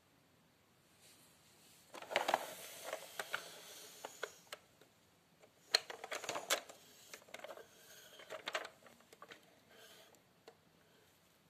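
Plastic toy fire truck being handled and moved on the floor: a run of plastic clicks, knocks and rattles in clusters, starting about two seconds in and dying away near the end.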